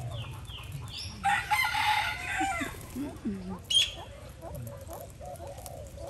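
Alexandrine parakeets calling: four quick falling chirps at the start, and a single sharp squawk a little past the middle. Between them, about a second in, comes the loudest sound: a harsh, drawn-out call lasting about a second and a half.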